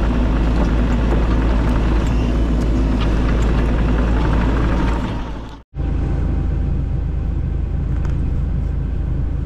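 Bobcat E42 mini excavator's diesel engine running steadily with a deep drone. The sound cuts out abruptly just past halfway and picks up again a moment later.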